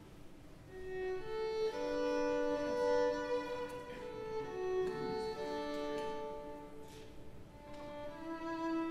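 Slow instrumental music led by a violin, playing a melody of long held notes: the introduction to a song, before the singing begins.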